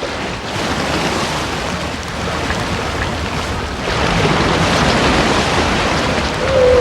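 Humpback whale calls over steady ocean noise: a faint falling moan about four seconds in, then a loud, held tonal call beginning near the end.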